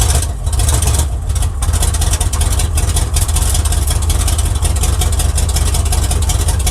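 1979 Chevy pickup's engine running steadily at idle. It has a misfire that the owner is chasing: he says it is still not right, and he suspects a loose torque converter is behind the knock he hears at low rpm.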